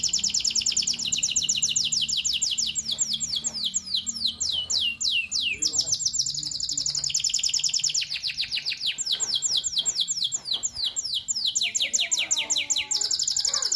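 Domestic canary singing a long, unbroken song of rapid trills, each note a quick downward sweep, the trill type changing every second or two.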